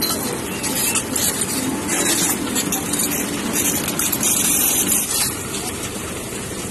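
Engine of a three-bag concrete mixer running steadily, with repeated rasping scrapes of shovels and a rake working through crushed stone.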